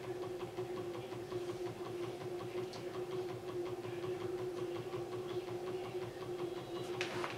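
Bedini-style pulse motor's drive coil buzzing with a steady hum and a rapid, even ticking as it pulses the 2.9-pound magnet rotor spinning above it. A sharp click near the end.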